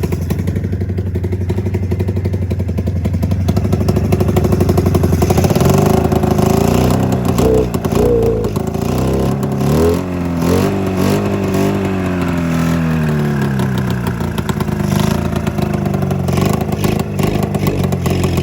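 Arctic Cat Mountain Cat snowmobile's two-cylinder two-stroke engine idling steadily, then from about five seconds in its speed rises and falls unevenly. The owner takes the sound for the engine running on only one cylinder, from a fuel-delivery problem.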